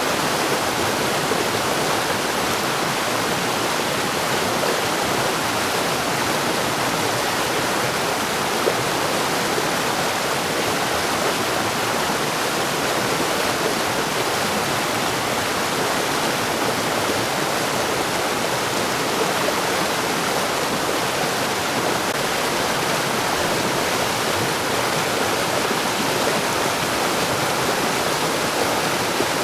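Mountain stream rushing over rocks, a steady, even water noise.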